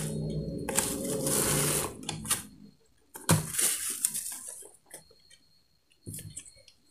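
Plastic packaging crinkling and rustling as a flashlight is pulled out of its wrapping, in two spells of crackly handling noise with sharp clicks, then a few small clicks near the end.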